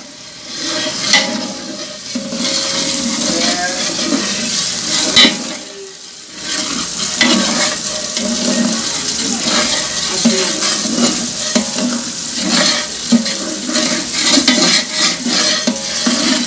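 A long metal ladle stirs and scrapes a spice paste as it fries and sizzles in an aluminium pot, the masala being fried down. There is a brief lull about six seconds in.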